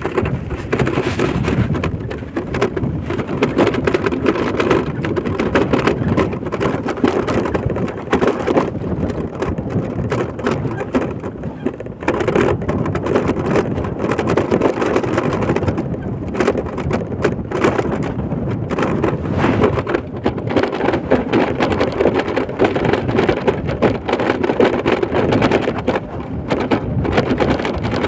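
A vehicle travelling along a road, with a continuous rumble of road and wind noise and irregular rattling jolts throughout.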